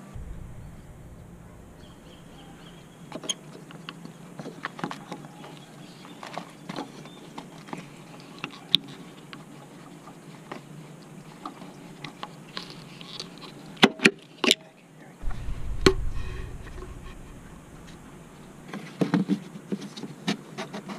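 Hands and tools working on the rubber radiator hose and plastic air intake duct in a car engine bay: scattered clicks and knocks of parts being handled, with two sharp clicks about two-thirds of the way through, a low rumble for a few seconds after them, and a cluster of knocks near the end.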